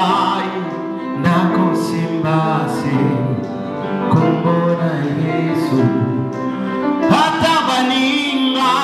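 Upright piano playing, with a voice singing along.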